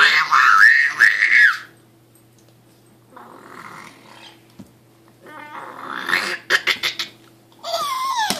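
Ten-month-old baby making loud, crazy vocal noises: a long high squeal in the first second and a half, quieter noisy vocal sounds in the middle, and a squeal falling in pitch near the end. Several sharp taps come around six to seven seconds in.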